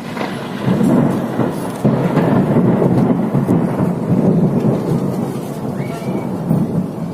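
Rolling thunder: a long, low rumble that swells sharply about two seconds in, holds for several seconds and dies away near the end.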